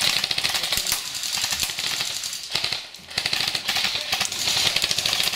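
Airsoft guns firing long bursts of automatic fire, a rapid clatter of shots that drops out briefly about two and a half and three seconds in.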